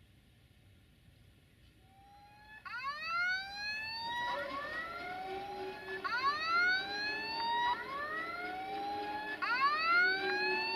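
Siren sounding a repeating rising whoop: each sweep climbs steeply for about a second and a half, then starts over, three times, beginning about two and a half seconds in. A steady lower hum runs beneath it from about four seconds in.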